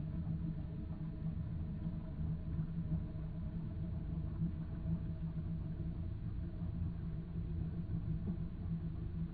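Steady low underwater rumble with a constant engine-like hum, the man-made motor noise that pollutes the seabed soundscape.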